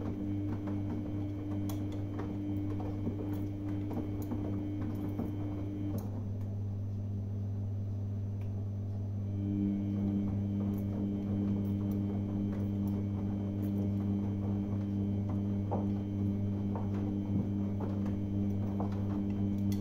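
Samsung front-loading washing machine in its main wash, the drum motor whirring over a steady low hum as the drum tumbles the laundry, with scattered light clicks. About six seconds in the motor whir stops and comes back some three seconds later, the usual pause as a front-loader's drum changes direction.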